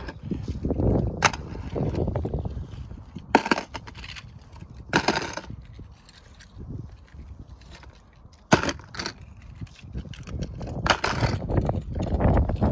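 Die-cast toy cars and a clear plastic storage case being handled: several sharp clicks and knocks of metal and plastic, a second or more apart, over low rustling and rumble.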